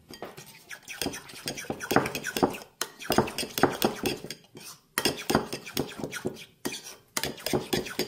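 Salad dressing being stirred in a bowl with a metal utensil: rapid clinking strokes against the bowl, in a few runs broken by short pauses.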